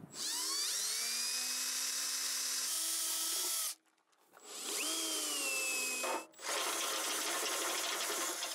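Power drill running in three bursts, each spinning up with a rising whine and then holding steady, drilling a hole through the vehicle's bumper.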